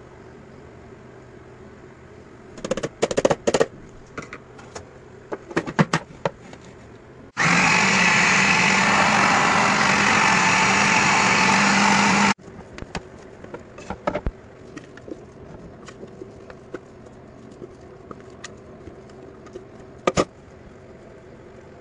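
Electric food processor motor running for about five seconds as it grinds chicken breast with breadcrumbs; it starts abruptly about seven seconds in and cuts off just as sharply. Scattered clicks and knocks from handling the plastic bowl come before and after it.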